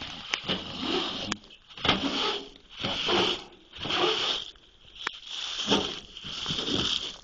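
Rustling and brushing of handled material, in noisy swishes about once a second, with a few sharp clicks between them.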